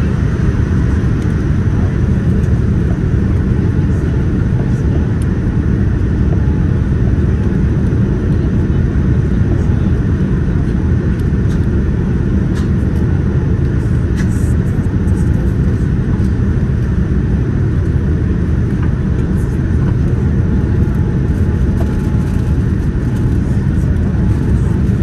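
Steady low rumble of engine and airflow noise inside the cabin of a Boeing 787-10 airliner descending to land, heard from a seat behind the wing.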